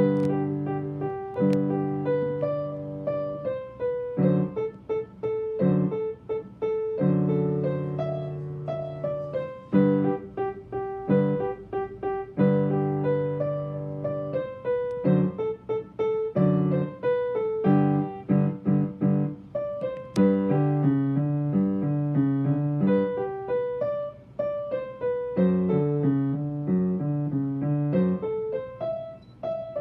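Yamaha upright piano played by a young student: a beginner-level boogie piece with a repeating figure in the low notes under a right-hand melody, played without pause.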